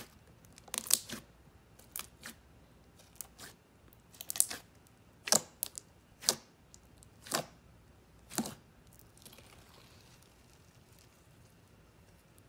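A big batch of freshly mixed clear glue slime, still cloudy with trapped air, pressed and poked by hand: sharp crackling pops about once a second. The pops stop for the last few seconds as the slime is stretched.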